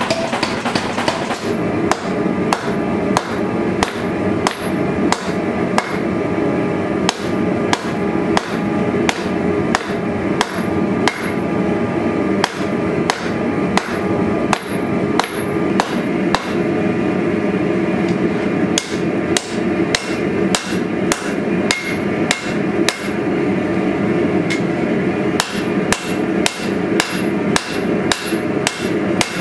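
Hand hammer striking a red-hot pattern-welded sword blade on an anvil, sharp metallic blows about two a second with a short pause midway, over a steady workshop hum. The first second holds a quick run of power-hammer blows.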